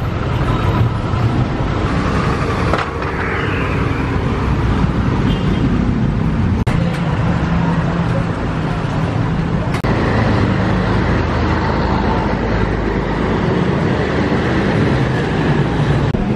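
Busy city street traffic: car and motorbike engines running and passing in a steady low rumble.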